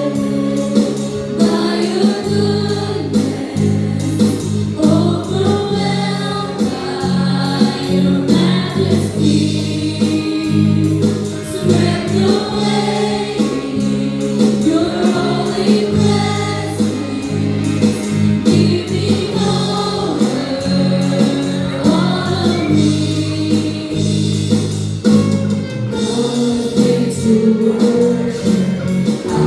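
A young praise team singing a worship song together in unison, backed by a band with a steady drum beat and sustained bass.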